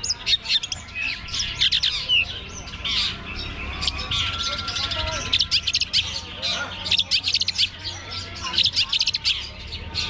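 Long-tailed shrikes (cendet) singing in a dense, rapid stream of sharp chattering notes and squawks, with a few short whistles mixed in.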